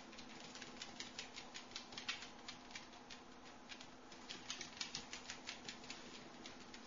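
Dog claws clicking and tapping on a hardwood floor as a miniature dachshund puppy scampers about, a few quick clicks a second in two runs with a short lull between them.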